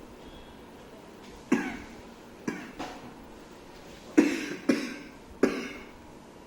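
A man coughing about six times in sharp fits, set off by the heat of the raw green chili he is eating.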